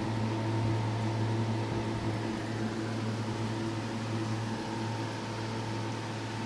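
Steady electric motor hum: a low drone with a few fainter higher tones over a light hiss, unchanging throughout.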